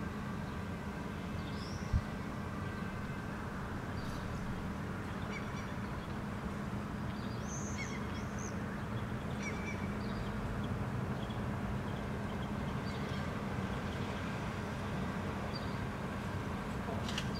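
Steady background rumble of city traffic with a low hum, and brief high bird calls now and then, several close together around the middle. A single short thump about two seconds in.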